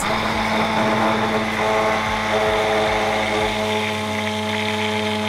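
Immersion blender running steadily at one speed, its motor humming as the blade emulsifies oil, eggs and mustard into mayonnaise in a glass cup.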